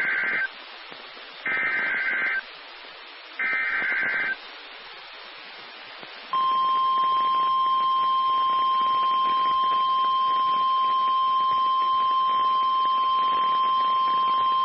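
Emergency Alert System header: the end of one burst and then two more bursts of SAME digital data tones, each about a second of harsh warbling screech with a short gap between. About six seconds in a single steady high alert tone starts and holds: the NOAA Weather Radio 1050 Hz warning alarm tone that precedes a warning message.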